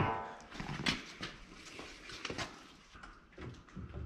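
Scattered light clicks and knocks from hands working a home battery's parts, a plastic wiring connector and the metal casing, with a sharp click right at the start.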